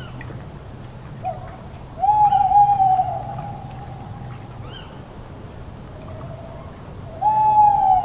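Owl hooting: a short note about a second in, then a long, slightly falling hoot held for about a second and a half, and another starting near the end.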